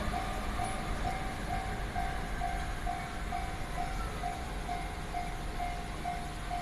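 Japanese railway level-crossing warning bell ringing its electronic ding-ding at about two strikes a second. A passing train's noise dies away early on.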